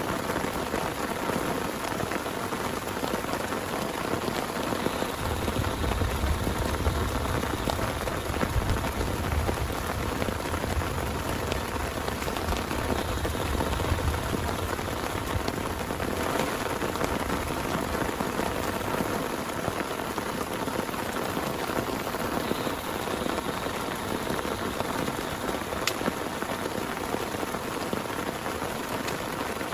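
Heavy rain falling steadily, a dense patter of drops. A low rumble swells in about five seconds in and fades out about ten seconds later.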